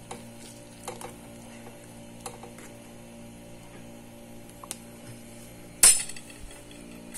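A metal fork stirring noodles in a steel pot, with a few faint clinks and one sharp metallic clink about six seconds in as the fork is tapped or set down. A steady low hum runs underneath.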